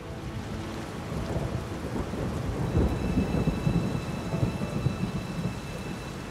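Steady rain with a rolling rumble of thunder that swells through the middle. Two faint, steady high tones come in about halfway.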